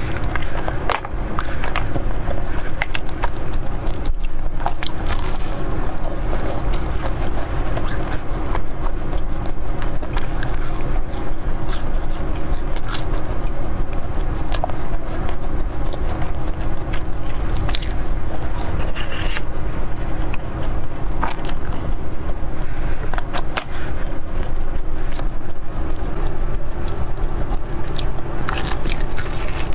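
Close-miked eating sounds: a fried pastry being picked apart by hand and chewed, a dense run of small crackles and clicks, with a bite into it near the end.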